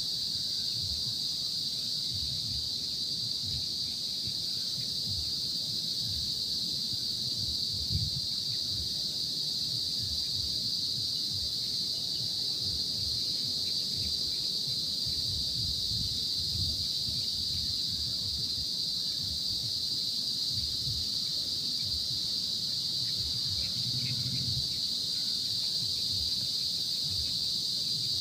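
A steady, high-pitched drone of insects. Beneath it, low, irregular rumbling of wind on the microphone.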